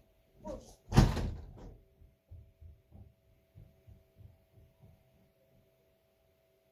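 A door shutting with a loud thump about a second in, followed by a run of faint low thumps that die away, over a faint steady hum.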